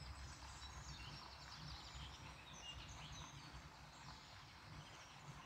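Near silence: faint outdoor ambience with distant birds chirping.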